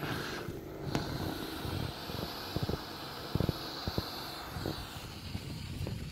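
Air rushing out through the opened valve of a large inflatable whale as it deflates: a steady hiss, with scattered low knocks from the hand working the valve and pressing on the whale's skin.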